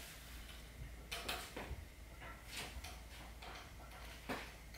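Faint, irregular handling sounds of hand work on the cast-iron milling machine column: a few short scrapes spaced roughly a second apart over a low steady hum.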